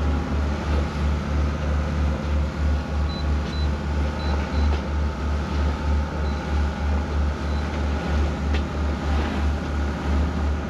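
A motor cruiser's inboard engine running under way, heard from inside the wheelhouse as a steady low drone that pulses about three times a second, over the rush of the hull through rough water.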